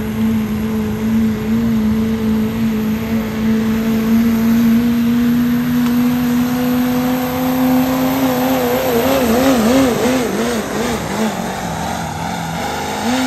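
Pickup truck engine at full throttle, held at steady high revs while pulling the sled. About eight seconds in, the engine note starts wavering rapidly up and down, then sags lower as the truck slows, with a short rev near the end before it drops away.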